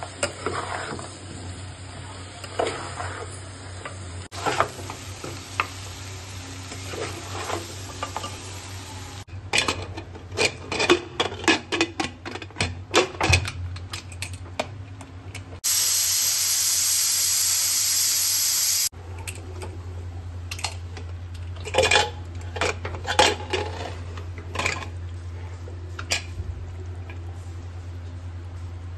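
Wooden spatula stirring and scraping sizzling curry in an aluminium pressure cooker, with repeated knocks and clinks against the metal pot. Near the middle, a loud, steady hiss of steam from the pressure cooker's whistle valve lasts about three seconds and stops abruptly, then the clatter of the pot resumes.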